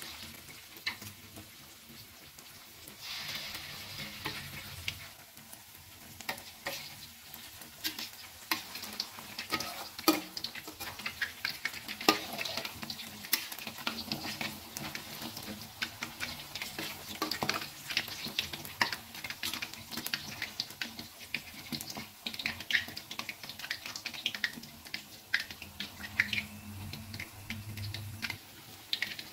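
Raw beef meatballs frying in hot oil in a wok: the oil sizzles with a dense, irregular run of crackles and pops, and the hiss swells about three seconds in.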